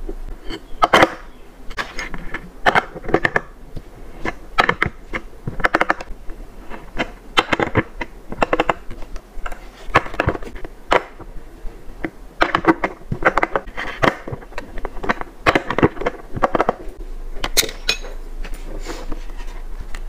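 Irregular sharp clicks and knocks of skateboard hardware being handled: wheels with bearings slid onto the truck axles, nuts and parts set down, and the board moved about on a mat.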